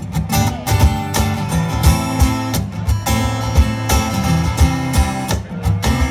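Live band playing the song's instrumental outro: strummed acoustic guitar chords over bass and a steady drum beat, with no vocals.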